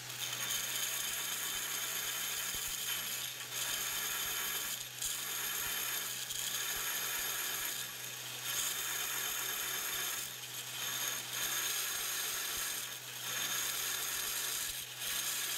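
Belt grinder running with the heel of a steel yanagiba sashimi knife held against the belt, a steady grinding hiss over the low hum of the motor. The hiss dips briefly every second or two as the blade is eased off and pressed back on.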